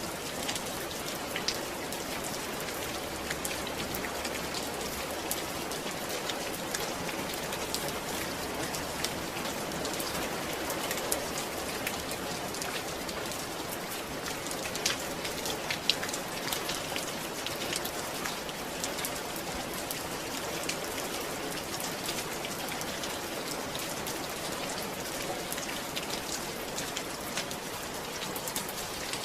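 Steady rain falling, a continuous patter of many small drops hitting a surface.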